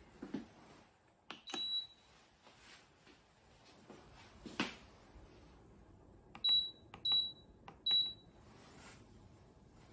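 Buttons on a COMFEE' KWH-TD602E-W compact dishwasher's control panel being pressed, each press a click answered by a short high beep: one beep, then three more a little under a second apart. A couple of other clicks fall between them without a beep.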